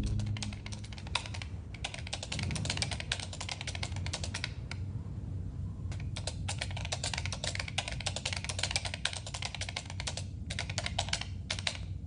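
Rapid typing on a keyboard in four runs of clicks, each a few seconds long with brief pauses between them, over a low steady hum.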